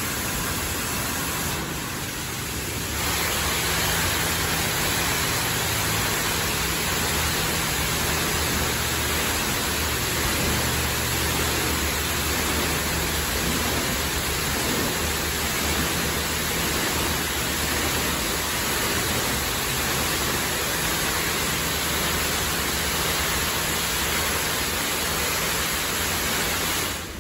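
Touchless car-wash gantry spraying high-pressure water over a car: a steady hiss of spray with a low machinery hum underneath. It dips briefly about two seconds in and cuts off near the end.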